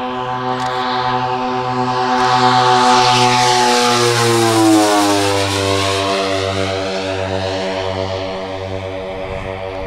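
Twin DLE 111cc two-stroke gas engines of a 1/5-scale F7F-3 Tigercat model plane, turning three-bladed props, drone through a low fly-by. The sound pulses slowly and grows louder as the plane approaches. About halfway through, its pitch drops as the plane passes, and then it fades a little.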